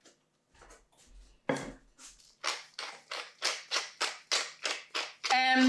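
Hand-twisted pepper mill grinding peppercorns: a crunchy grinding stroke with each twist, about three a second, starting about a second and a half in after a few faint handling taps.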